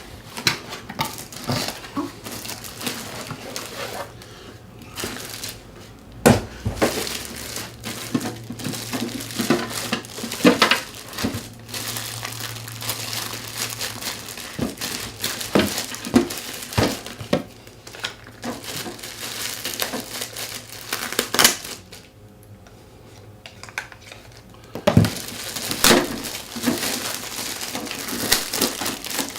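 Plastic packaging crinkling and rustling, with irregular clicks and knocks as a small cash box is unwrapped and handled. A short quieter lull comes about three-quarters of the way through.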